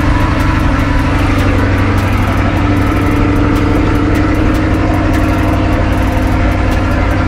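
C8 Corvette's V8 engine idling steadily shortly after a cold start, still warming up.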